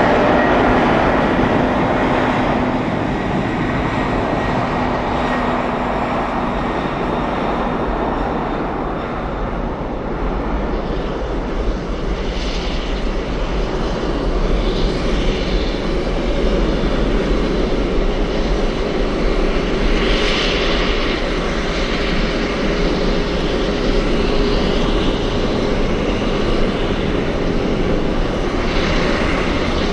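Jet airliner engines running with a steady, loud rush of noise. A pitched engine whine rises into the start, and faint steady engine tones sit under the noise.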